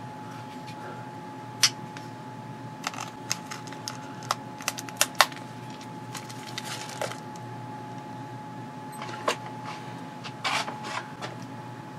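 Scattered sharp clicks and taps of handling a folding knife and small objects, at uneven intervals with a short cluster near the end, over a faint steady high tone.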